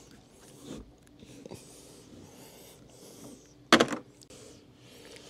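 Faint rubbing and scuffing of a hand pressing and sliding over a flexible solar panel's textured surface, with one short loud sound a little under four seconds in.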